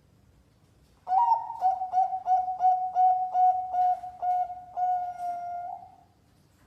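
Perkutut bangkok (zebra dove) cooing its song: a run of about ten short, clipped coos, about three a second, ending in one longer drawn-out note.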